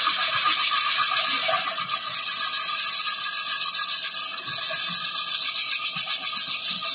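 Wood lathe spinning a large wooden wine-bottle blank while a hand-held tool works its neck: a loud, steady, high rasping with a fast, even chatter.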